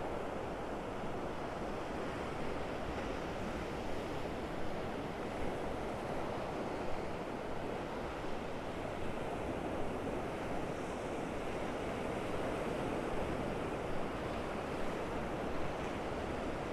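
Gulf of Mexico surf washing onto the beach: a steady wash of breaking waves with small swells in loudness.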